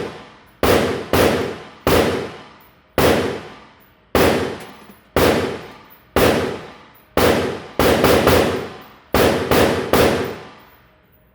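Glock pistol firing about fourteen shots at an uneven pace, mostly about a second apart with a few quick pairs near the end, each shot followed by a long echo that fades over about a second.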